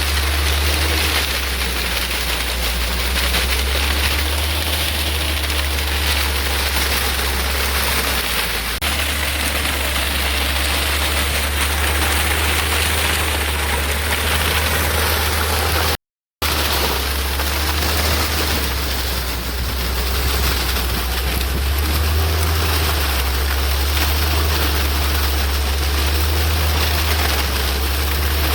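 Engine of a homemade rotary soil tiller running steadily, with a strong low drone under a broad hiss. The sound drops out for a moment about halfway through.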